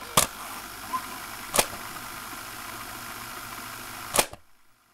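Tape-static hiss with three sharp glitch clicks, the last one near the end, after which the hiss cuts off suddenly: a VHS-style static intro sound effect.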